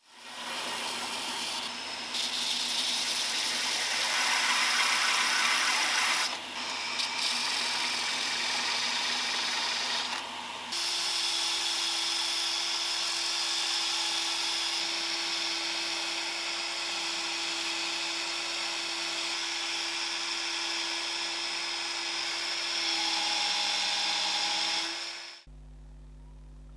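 Belt sander running, its belt hissing as it grinds a wooden handle. About ten seconds in, a power drill starts spinning the handle against the belt, adding a steady whine. Both stop shortly before the end, leaving a low hum.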